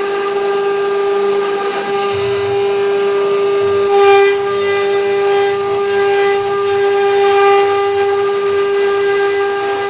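High-speed spindle motors of a multi-head CNC wood router whining with a steady high tone as their bits carve into wooden blocks, swelling briefly louder about four seconds in.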